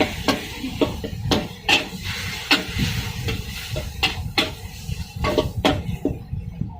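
Metal spatula clanking against a wok in irregular strikes, about two a second, over a steady low rumble.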